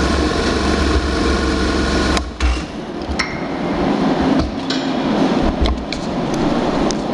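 A motorcycle engine running, then cut off about two seconds in, followed by scattered metallic clicks and knocks.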